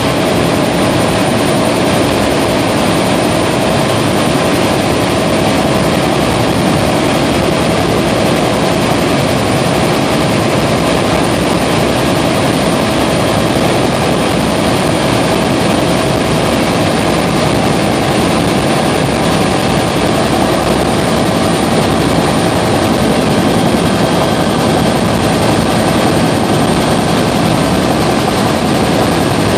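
Helicopter in flight heard from inside the cabin: a loud, steady drone of engine, rotor and wind, with a few constant whines running through it.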